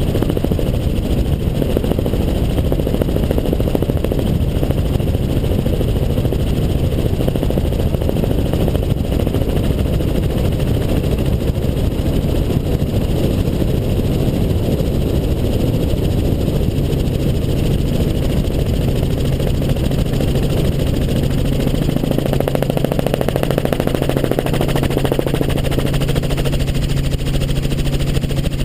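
Helicopter in flight heard from the cabin: steady loud engine and rotor noise, with a low steady hum that grows stronger about two-thirds of the way through.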